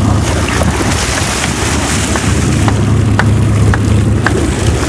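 Fishing boat's engine running steadily under wind noise on the microphone and the wash of the sea, with a few short faint clicks scattered through.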